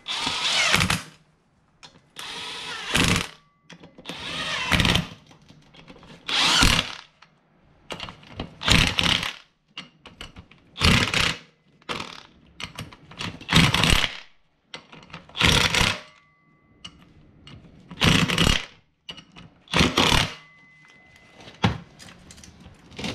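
Cordless impact driver run in a dozen or so short bursts, about one every two seconds, as it backs the nuts off the rear sprocket of a 2006 Honda CBR600RR wheel for a sprocket replacement.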